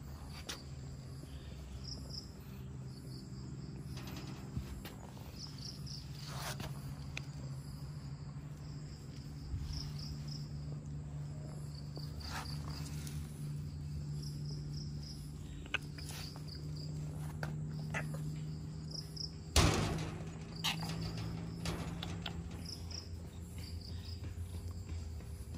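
Crickets chirping in repeated quick trills over a steady low hum, with a few soft knocks, the loudest about twenty seconds in.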